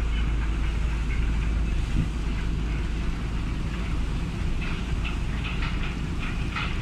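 Steady low rumble of a boat's engine under way, with wind and water noise over it and a few short rustling bursts in the second half.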